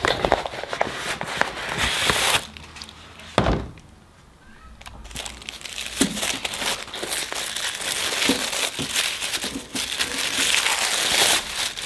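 Paper mailer envelope rustling and crackling as it is torn open, with a single thump about three and a half seconds in. After a quieter spell, tissue paper crinkles steadily as a package wrapped in it is unfolded.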